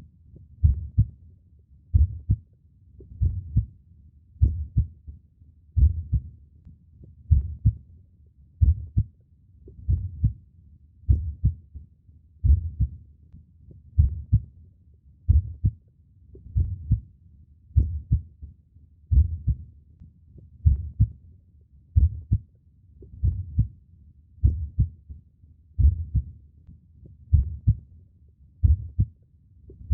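Human heartbeat: low paired thumps (lub-dub) in a slow, steady rhythm, a little over one beat every second and a quarter.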